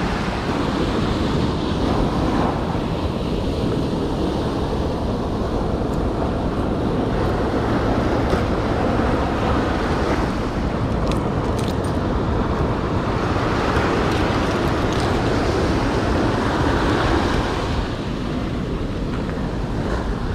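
Surf breaking and washing up a sand beach in a steady rush, with wind buffeting the microphone.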